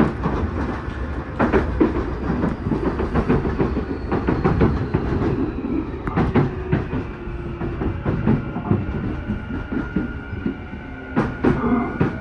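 Onboard running sound of a Tokyu new 5000 series electric train with an unrenovated Hitachi IGBT VVVF inverter: wheel and rail noise with repeated rail-joint clicks, and a faint inverter whine falling in pitch as the train slows into a station.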